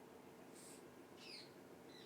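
Near silence: faint room tone, with a couple of faint high chirp-like sounds.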